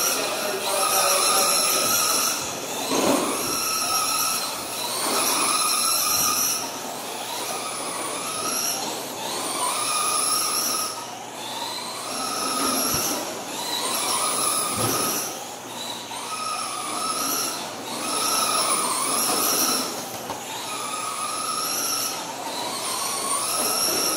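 Electric 1/10-scale RC cars (Traxxas Slash street stocks) lapping a small dirt oval: the high whine of their motors and gears swells and bends in pitch about every two seconds as they accelerate out of the turns and pass, over the hiss of tyres on dirt.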